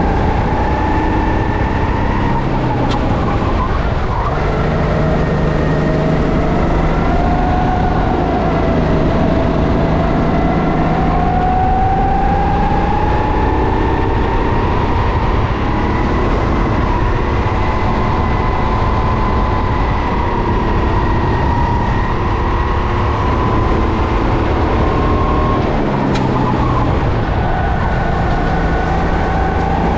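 Racing kart engine running hard under throttle, its pitch climbing slowly and then holding high, dipping briefly about four seconds in and again near the end.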